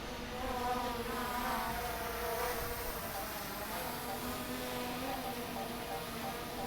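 DJI Mini 3 Pro drone's propellers buzzing in flight, a steady whine whose pitch wavers slightly as the motors adjust, with wind rumbling on the microphone.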